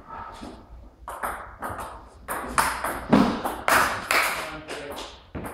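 Table tennis ball clicking off bats and bouncing, a string of sharp ticks, with footsteps and shoe scuffs on a wooden floor loudest in the middle.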